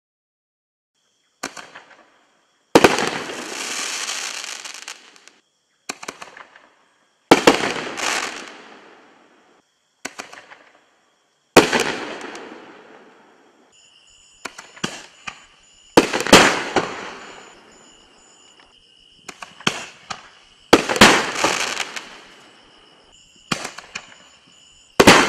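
Reloadable canister firework shells fired one after another from a mortar tube, about six in all, one every four to five seconds. Each launch gives a smaller crack, and about a second later the shell bursts with a loud bang whose sound fades over a second or two.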